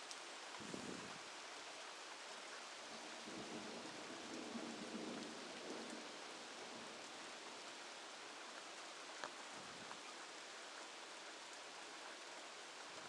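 Steady rain hissing down in a thunderstorm, with low rumbles of thunder about a second in and again from about three to six seconds in.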